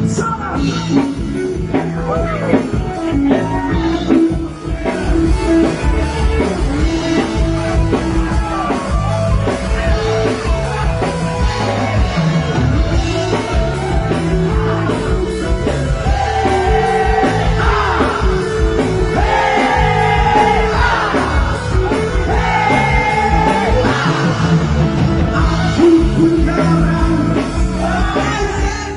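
Live rock band playing with drums, bass and electric guitar. A bending melodic lead line stands out over the top in the second half.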